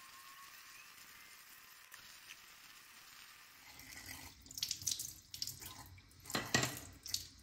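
Bathroom tap running into a sink with uneven splashing, starting about halfway through, as water is used at the basin.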